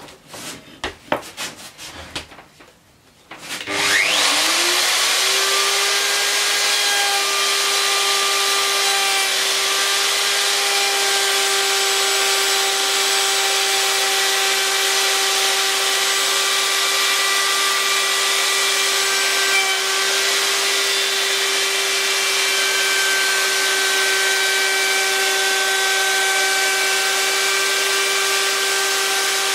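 A few handling knocks, then about four seconds in a Makita plunge router starts, spins up to a steady high whine, and runs on evenly as it cuts a rebate into a wooden frame.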